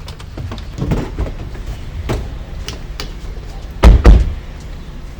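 Car doors being opened, with a few small clicks and knocks, then two doors slamming shut in quick succession nearly four seconds in, over a low steady rumble.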